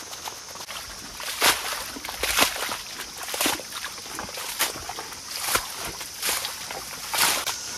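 A hand hoe chopping into and dragging through the wet mud of a flooded rice paddy, each stroke a sloppy splash, about seven strokes roughly a second apart; the mud is being worked up for transplanting.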